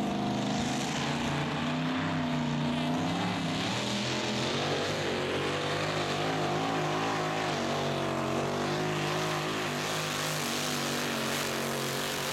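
Supercharged engine of a mini tractor puller running at high revs under full load as it drags the weight sled, its pitch wavering up and down.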